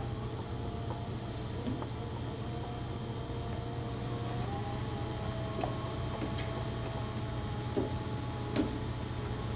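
Power wheelchair's electric drive motors whining steadily as it moves, the pitch shifting slightly with speed, over a low hum, with a few faint clicks near the end.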